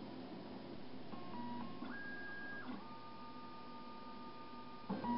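Darex XPS-16 CNC drill sharpener running its automatic cycle on an inserted drill, its motors humming in steady tones that step up and down in pitch as it measures the drill's diameter. Near the end, a clunk and the hum becomes louder.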